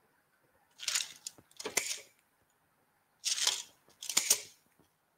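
Scissors snipping through kebab skewers, four crisp cuts in two pairs, shortening the skewers.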